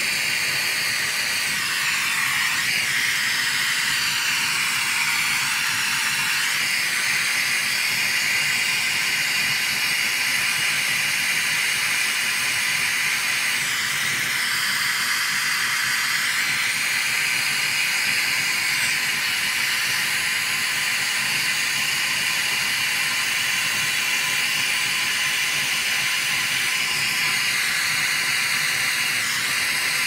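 Oxy-fuel brazing torch burning with a steady hissing flame, played on the copper pipe of a refrigerator compressor.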